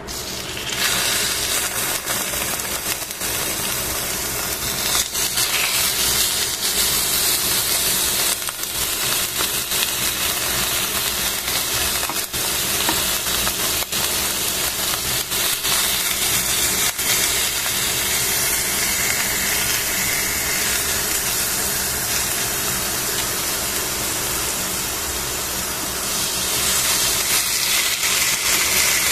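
Rolled thin-sliced beef sizzling in hot oil in a stainless-steel pan, a steady hiss that starts about a second in as the first roll goes in and grows louder near the end as more rolls are added. A few sharp clicks come from the tongs against the pan.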